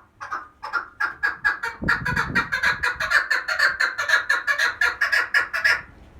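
Female chukar partridge calling: a fast run of short clucking notes that packs closer together and grows louder, then stops shortly before the end. It is the female's call that draws in male partridges. There is a brief low bump about two seconds in.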